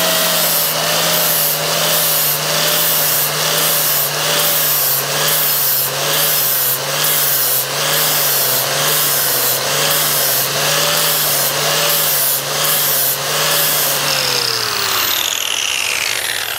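Angle grinder with a 40-grit Pferd flap disc grinding a TIG weld flush on 316 stainless steel tube, its motor note wavering slightly in a regular rhythm under load. About fourteen seconds in it is switched off and winds down with a falling whine.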